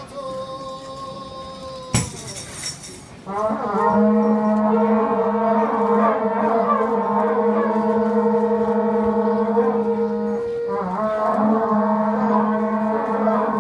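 Several conch shell trumpets blown together in long, steady, low notes. They start about three seconds in and hold with only a short break near the end, after a sharp knock about two seconds in.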